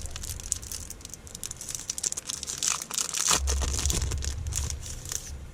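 Plastic packaging being crinkled and torn off a replacement phone screen: a steady run of small crackles, with low handling rumble from about halfway through.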